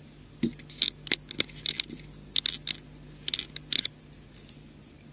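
Beads clicking against one another in quick clusters of small, sharp clicks as a beaded figure strung on fishing line is handled and set down, about a dozen clicks over the first four seconds.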